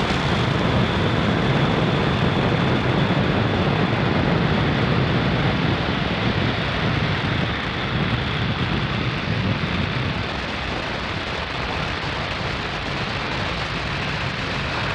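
Falcon 9 first stage's nine Merlin 1D engines during the early climb after liftoff: a loud, steady rumbling roar that eases slightly about ten seconds in.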